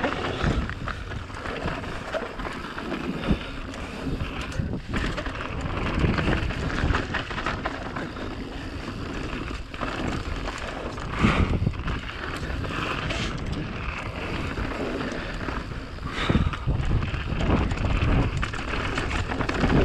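Giant Reign Advance mountain bike descending a dirt race trail at speed: wind buffets the microphone over a steady rush of tyres and rattling bike. A few harder knocks from bumps stand out.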